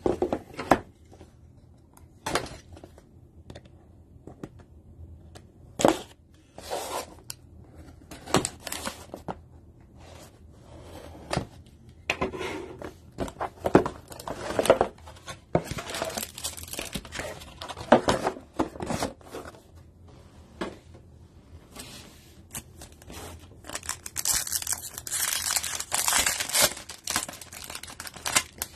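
Packaging being handled and opened: scattered sharp clicks and rustles from a cardboard trading-card box. Near the end a foil card pack is torn open, giving a dense, loud crinkling.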